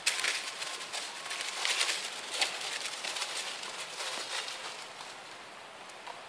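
Dry leaf litter rustling and crackling in short bursts as monkeys move over it, loudest in the first half and quieter after that.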